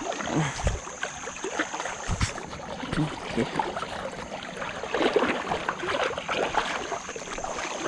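River current flowing and lapping around a wading angler, with small splashes and a knock about two seconds in.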